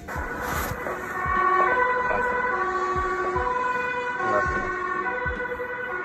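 Emergency vehicle two-tone sirens, the pitch stepping between two notes about every half second.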